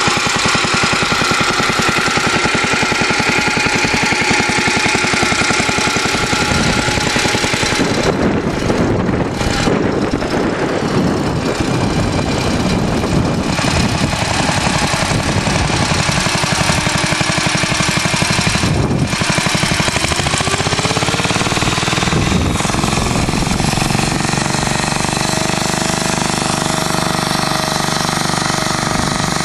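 1947 Clifford Mk1 two-wheeled tractor's air-cooled single-cylinder J.A.P. engine running under load while pulling a plough through soil, a rapid steady chugging. Its note rises a little about twenty seconds in.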